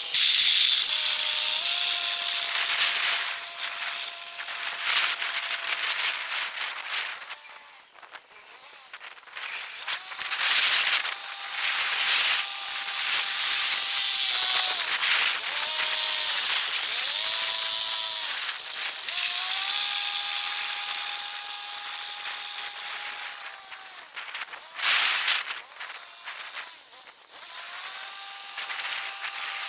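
Tractor tilling garden soil: a steady hiss with a whining tone that holds, then steps up and down in pitch as the engine speed changes. It dips quieter briefly about eight seconds in and again later.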